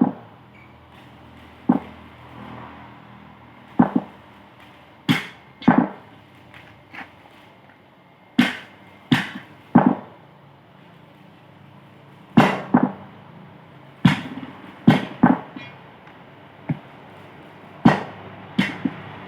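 Metal tools knocking and clanking on steel parts while a truck's steering box is being worked on: about fifteen sharp strikes at irregular intervals, each ringing briefly.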